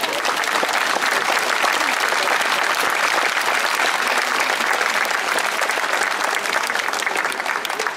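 Crowd of spectators applauding with dense, steady clapping.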